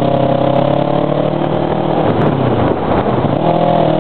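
Kawasaki 650R parallel-twin motorcycle engine running under way, heard from the rider's helmet camera. The steady engine note breaks up for about a second a little past halfway, then comes back slightly higher.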